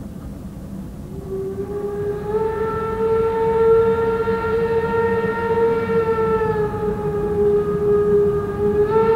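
Steam locomotive whistle sounding one long blast that starts about a second in, its pitch rising a little at first and then holding for some eight seconds; a second blast begins near the end. Under it runs the low rumble of the locomotive working hard to start its train.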